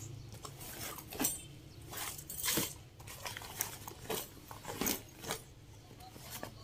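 Fabric bags being rummaged and shifted by hand in a pile: irregular rustles and swishes of cloth, with a few light clinks of buckles or zip hardware.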